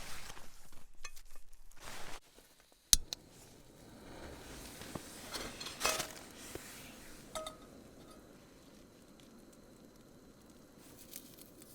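Camp cookware being handled: a sharp knock about three seconds in, then a few lighter clinks, two of them with a short ringing note, over a faint hiss.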